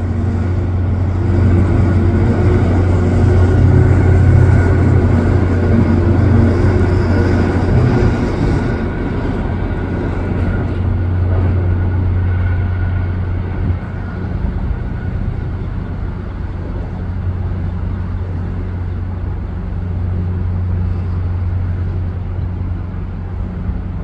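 Motorboat engine droning as a cabin cruiser moves past the raised bascule drawbridge. The drone is steady and low, loudest over the first third and easing off somewhat after about nine seconds.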